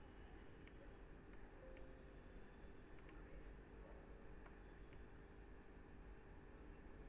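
Near silence with about seven faint, sharp computer clicks from a mouse and keyboard, scattered through the first five seconds, over a faint steady hum.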